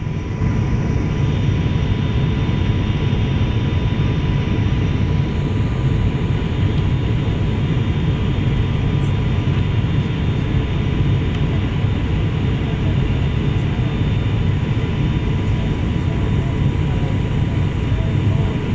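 Turboprop airliner's engines and propellers in flight, heard inside the cabin: a steady low drone with a thin, steady high whine running through it.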